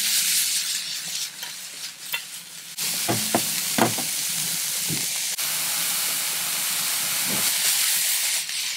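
Gooseneck barnacles frying in hot oil with onion and garlic in a pan: a steady sizzle that grows stronger about three seconds in, with a few light clicks of stirring.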